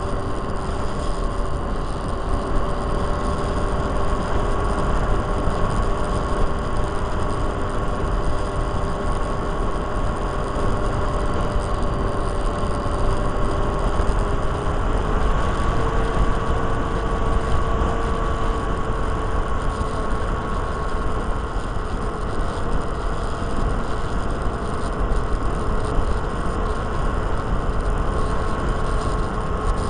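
Micro Interceptor RC plane's electric motor and propeller whining steadily, heard from on board with wind rushing and buffeting over the microphone. The whine steps up in pitch about halfway through as the motor speeds up.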